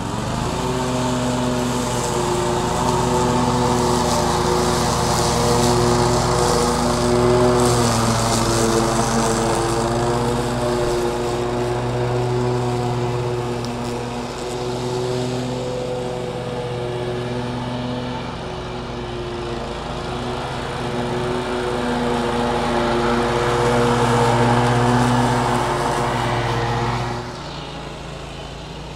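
Toro Grandstand stand-on mower's engine running steadily at working speed while it cuts soaking-wet grass. It grows louder as the mower comes close and falls off sharply near the end as it moves away.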